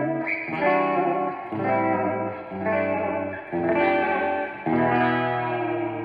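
Electric guitar played through a freshly recapped 1961 Fender 6G15 tube-driven spring reverb unit, sounding a new chord every half second to a second.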